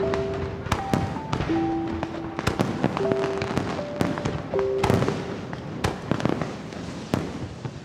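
Aerial fireworks bursting, a string of sharp bangs at uneven intervals, over background music of short held notes.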